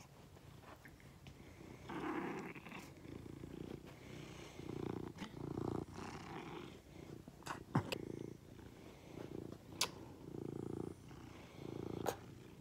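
Tabby cat purring close up, the purr swelling and fading with each breath about once a second, with a few brief clicks.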